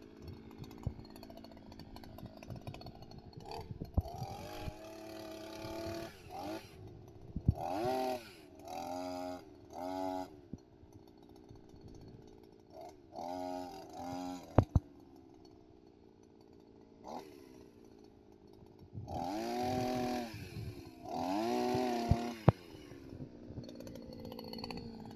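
Brush cutter engine driving a chainsaw attachment, idling low between about seven short bursts of throttle. Each burst revs the engine up and lets it fall back to idle.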